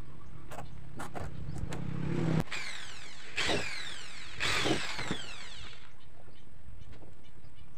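Corded electric drill boring into a plywood sheet in three short bursts, the motor whine falling in pitch as it winds down after each.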